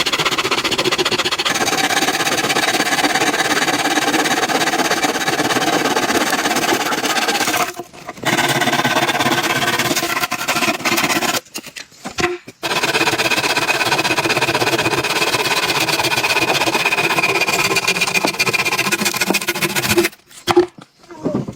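A small motor running steadily with a fast, even rattle and a whine, stopping briefly three times and starting again.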